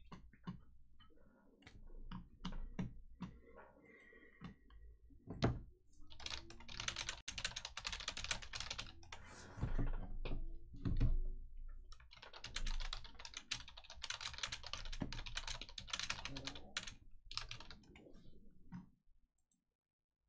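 Typing on a computer keyboard: a few scattered key clicks, then two runs of rapid keystrokes, each a few seconds long. Between them are a couple of dull thumps.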